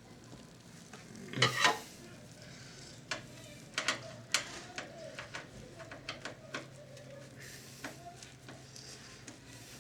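Hands working on the underside of a Sharp VC-573E video cassette recorder to take its bottom panel off: a clatter about a second and a half in, then scattered light clicks and taps of screws and a screwdriver against the metal and plastic casing.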